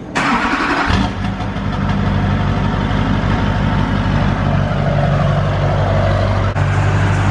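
LLY Duramax 6.6-litre V8 turbo-diesel starting: a short burst of cranking, then the engine catches about a second in and settles into a steady idle through its catalytic-converter- and muffler-delete exhaust.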